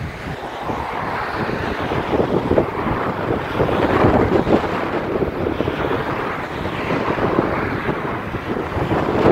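Class 37 diesel locomotives' English Electric V12 engines running as the train draws away, mixed with wind on the microphone.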